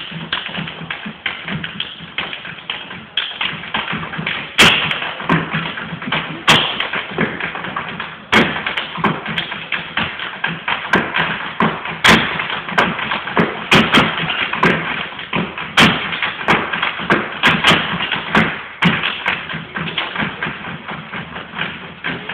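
Percussive step dancing by three dancers on a stage floor: a rapid run of foot taps in rhythm, with a few louder stamps scattered through.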